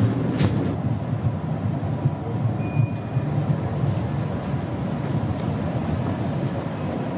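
Steady low rumble of a Bombardier Flexity Outlook tram coming out of a tunnel toward a tram stop.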